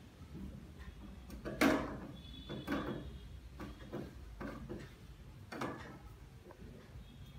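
A handful of knocks and rattles from a chair being jostled as a small child wipes it down with a cloth, the loudest knock coming nearly two seconds in.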